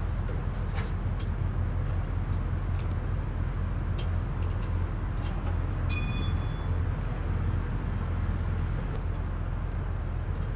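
Scania diesel engine running steadily on the road, a low drone. About six seconds in comes a brief high-pitched squeal, and a few light clicks and rattles are scattered throughout.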